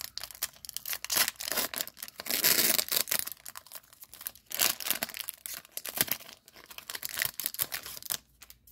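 Paper wrapper of a 1995 SkyBox trading-card pack being crinkled and torn open by hand. It makes a dense run of crackles, with a longer, louder tear about two and a half seconds in.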